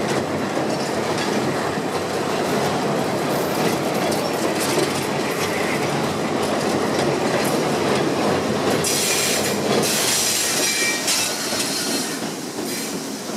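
Passenger coaches rolling across a steel deck girder bridge, with a steady rumble and clatter of the wheels on the rails. A higher wheel squeal comes in about nine seconds in, and the sound eases off near the end as the last car passes.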